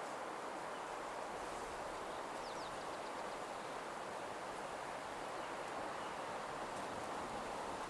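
Steady nature ambience: an even rushing hiss, like wind in leaves, with a few faint, quick bird chirps about two and a half seconds in.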